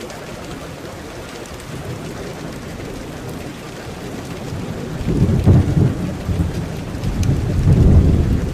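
Steady rain falling, with two low rolls of thunder: one about five seconds in, and a louder one from about seven seconds in.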